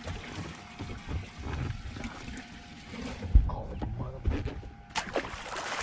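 Outdoor ambience on a bass fishing boat: wind buffeting the microphone with uneven low rumbles and thumps, water noise, and a faint steady tone. A short sharp burst of noise comes about five seconds in.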